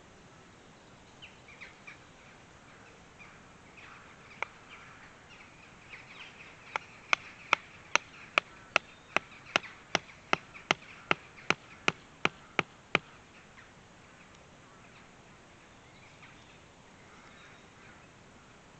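A hatchet striking wood in a steady run of about sixteen sharp blows, about two and a half a second, starting about seven seconds in, after a single knock a few seconds earlier. Faint bird calls sound in the background.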